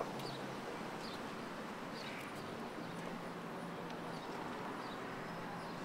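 Quiet outdoor ambience: a steady low hum with a few faint short chirps scattered through it.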